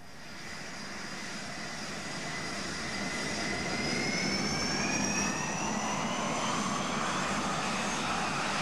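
Twin-engine jet airliner's turbofans at takeoff power as it rolls and lifts off: a steady rumble under a high whine that slowly rises in pitch, growing louder over the first few seconds and then holding.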